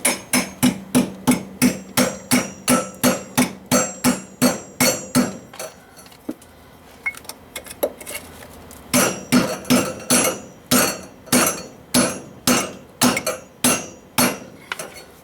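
Hammer striking over and over, about three blows a second, each with a short metallic ring, in two runs with a pause of a few seconds between them. It is banging out a caulking plug from a pipe hole through a house wall.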